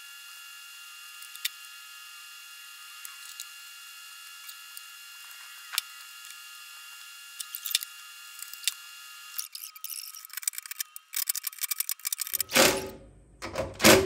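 Small screws and hand tools clicking against a fuel pump's metal mounting flange, over a faint steady high hum, then a cordless drill-driver runs in two short bursts near the end, driving in the flange screws.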